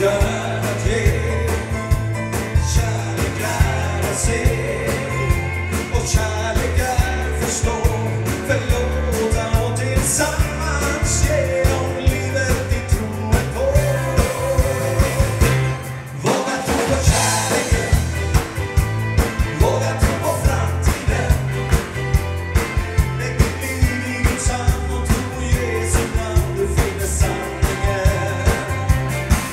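A band playing an upbeat song with a singing voice over a steady drum beat and bass, briefly dropping back about halfway through.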